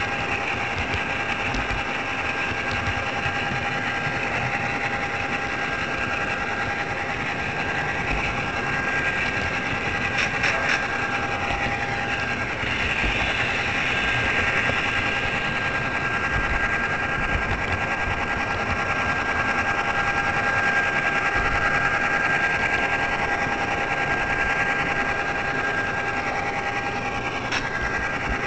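HO scale model train running along its track, heard from a camera riding on it: a steady small-motor whine over the rumble of wheels on the rails, with a few short clicks about ten seconds in and again near the end.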